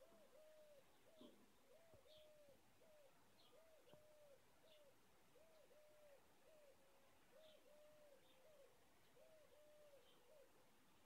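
Faint bird calling in the background: a run of soft, low notes, each rising and falling, repeated in short groups without a break, with a few faint high chirps between them.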